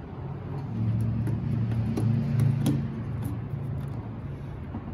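A low engine-like hum swells about a second in and fades away around four seconds, with light clicks and taps from handling the plastic headlight housing over it.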